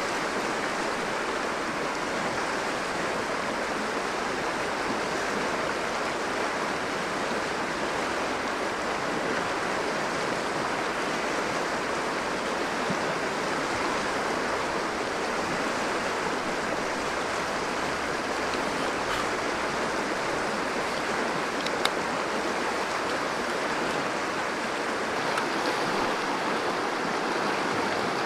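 River water flowing steadily over a stony bed, a constant even rushing. A single sharp click sounds about three-quarters of the way through.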